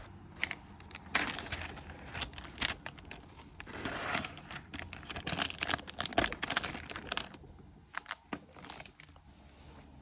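Thin plastic film lid crinkling and tearing as it is peeled off a plastic takeaway rice-bowl tray: a dense run of crackles, then a few separate clicks near the end.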